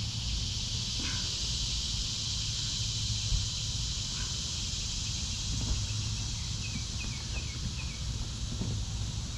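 Steady high-pitched insect chorus with a low, uneven rumble underneath.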